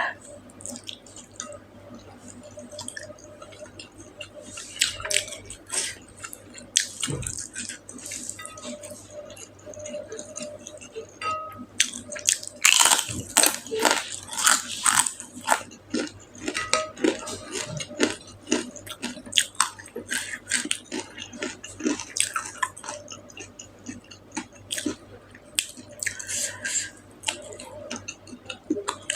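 Close-miked eating sounds: chewing with many irregular wet smacks and mouth clicks, busiest about halfway through.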